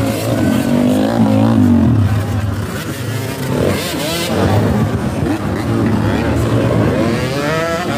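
Dirt bike engines revving as motocross bikes race past on a dirt track, their pitch rising and falling, with a run of rising revs near the end.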